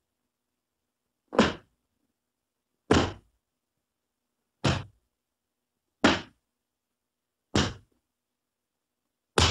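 A series of six separate hit sound effects, short dull impacts about one and a half seconds apart, each dying away quickly, with dead silence between them.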